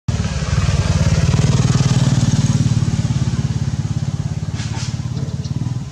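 A small engine running with a rapid, even pulse, loudest about two seconds in and slowly fading toward the end.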